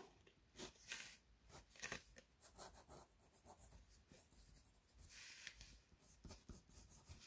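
Ballpoint pen writing and drawing on paper: faint short scratching strokes, with one longer stroke about five seconds in.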